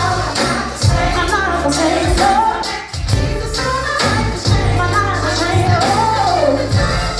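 Live gospel singing: a female lead singer with a group of backing vocalists on microphones, over a band with a steady bass line and regular percussion hits.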